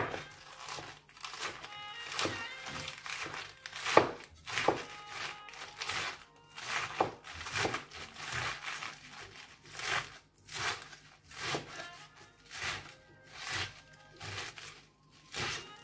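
Kitchen knife chopping crisp lettuce leaves against a cutting board: crunchy cuts, irregular at first, then settling into a steady rhythm of about three chops every two seconds. Quiet background music runs underneath.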